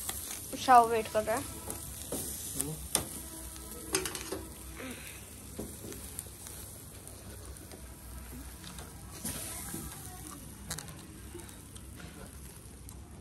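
Tandoori chicken sizzling over glowing charcoal on a wire-grate grill, a steady hiss, with a few sharp clicks of steel tongs against the grate. A short voice sound about a second in is the loudest thing.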